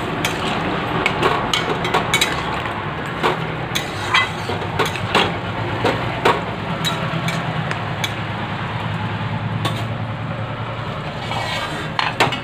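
Metal spatula stirring chunky vegetables in an aluminium kadai, knocking and scraping against the pan in irregular clicks, over a steady low hum. A quick cluster of knocks comes near the end.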